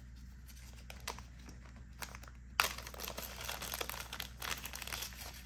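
Thin clear plastic zip-top bag crinkling as it is handled and opened: a few faint clicks at first, then a sudden, continuous run of crinkling from a little past halfway.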